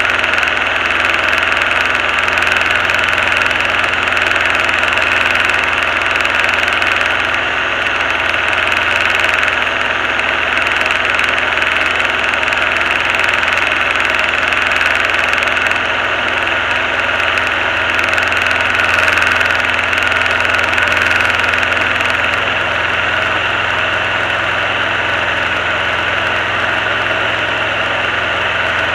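Diamond DA20 light aircraft's piston engine and propeller droning steadily, heard from inside the cockpit.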